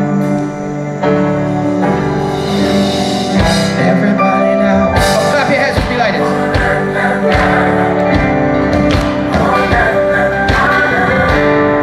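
Live gospel band playing the opening of a worship song: held chords with guitar, a drum beat coming in about three and a half seconds in, and a voice singing wordless lines over it.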